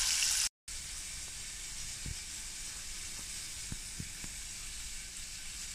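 Hot oil sizzling from deep-fried chicken feet: a loud frying sizzle that breaks off about half a second in, then a steady softer sizzle with a few faint pops.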